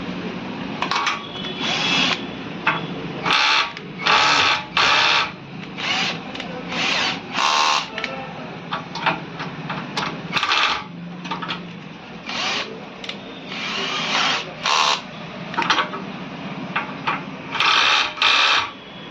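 Tool work on a gas stove: over a dozen short, irregular bursts of harsh scraping or grinding noise over a steady low hum.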